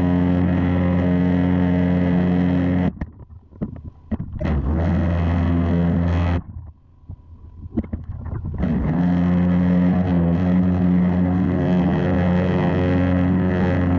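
Pressure washer spraying through a rotary turbo nozzle: a steady, buzzing drone. The jet cuts off about three seconds in and resumes a second or so later, then cuts off again about six seconds in and builds back up near the end of the second gap.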